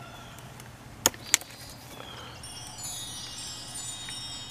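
Pruning shears snipping through an eggplant stem: two sharp clicks about a second in. These are followed by a shimmering run of many high chiming tones.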